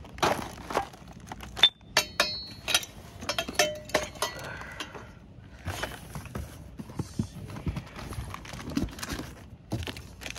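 Chrome-plated steel parts of a Rabaconda motorcycle tire changer and its tire irons being handled and set down: irregular metal knocks and clinks, some ringing briefly.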